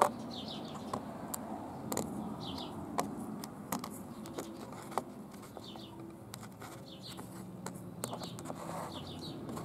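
Steel washers and nuts clicking lightly as a hand sets them down and slides them around on cardboard, in scattered single clicks. A small bird chirps repeatedly in the background.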